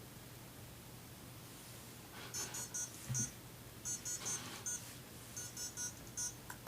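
Buzzer of a home-made Arduino alarm beeping in quick groups of about four short high beeps, three groups in all, starting about two seconds in. There is a low thump among the first group.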